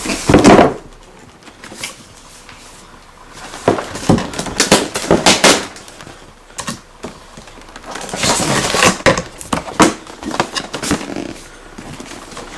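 Cardboard boxes and plastic packaging being handled, rustling and scraping in three bouts with quieter gaps between.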